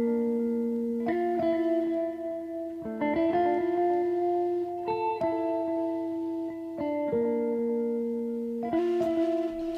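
Background music: a melody of plucked guitar notes, with a new note or chord every second or so.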